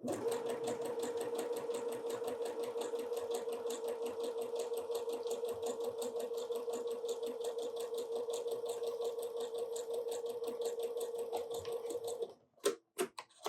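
Sewing machine running at a steady speed, stitching quilt pieces together: a rapid, even needle rattle over a steady motor hum. It stops about twelve seconds in, followed by a few sharp clicks.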